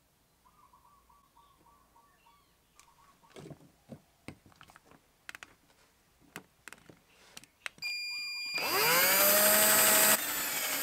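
Cordless drill drilling a hole through a plastic inverter end cap for a switch. After some faint handling clicks, the motor starts about two-thirds of the way in with a whine that rises in pitch and then holds steady. It drops to a lower, steady run near the end.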